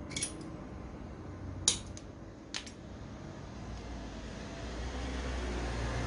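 A hand tool clicks three times, sharp and short, as it works the wire ends of a new electric-drill cord while the insulation is stripped. The second click is the loudest. A low rumble builds from about four seconds in.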